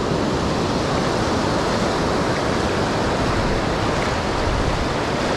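Ocean surf breaking and washing up over the shallow beach, a steady even rush of water noise.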